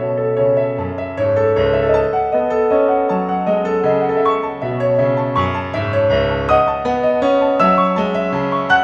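Roland F-140R digital piano played with its acoustic-piano tone: a flowing piece of sustained chords over a moving bass line.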